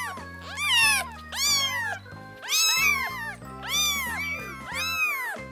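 Very young kitten mewing repeatedly, a string of high, plaintive mews that rise and fall in pitch, about one or two a second.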